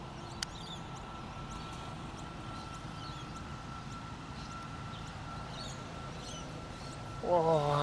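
A putter striking a golf ball, one short click about half a second in, then several seconds of quiet outdoor background with a faint steady high tone while the ball rolls. Near the end a man lets out a long, drawn-out 'whoa' as the putt nearly drops.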